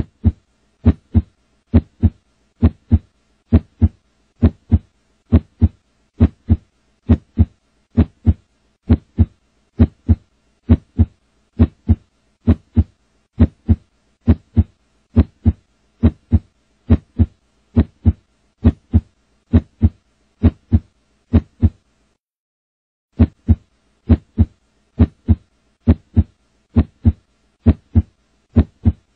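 A heartbeat beating steadily, a regular run of short low thumps about once a second, with a single pause of about a second roughly three-quarters of the way through.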